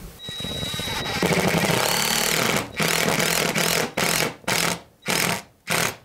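Power driver running a #10 by 2-inch screw through a pipe flange into a wooden ceiling stud. It runs steadily for about two and a half seconds, then in several short trigger bursts as the screw is driven home.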